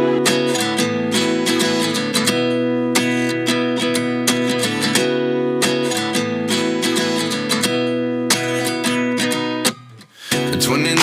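Background music: acoustic guitar strumming a steady rhythm, with a brief drop-out about ten seconds in before the song comes back in.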